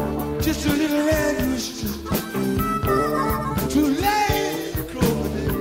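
Live rock band playing a slow blues: electric guitars, bass and drums, with regular drum and cymbal strokes and bending guitar or vocal lines.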